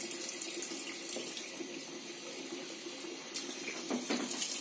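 Kitchen tap running steadily into a stainless-steel sink, splashing as millet is rinsed in a bowl under it.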